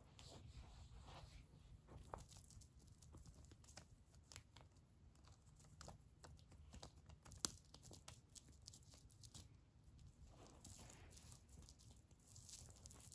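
Faint scratching and rustling of a kitten rolling and clawing at a wand toy on carpet, with one sharper click about seven seconds in.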